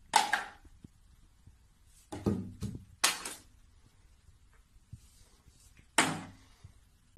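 Plastic toiletry bottles knocked over by a cat onto a bathroom counter: a few short clatters and thuds, about two and three seconds in and again near the end, with quiet between.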